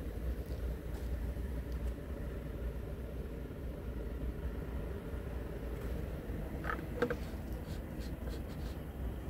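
Scania R truck's diesel engine idling steadily, a low even rumble. A brief click sounds about seven seconds in.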